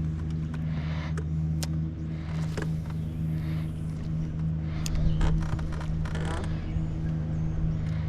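A motor running steadily with a low, even hum, with scattered sharp clicks and a few short rustling bursts over it.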